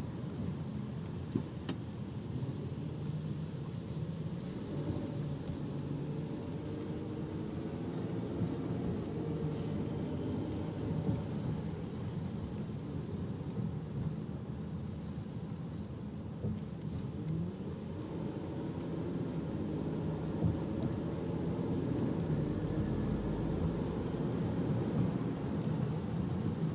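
Steady low car engine and road rumble heard from inside the cabin of a car moving slowly in traffic, with a few faint clicks.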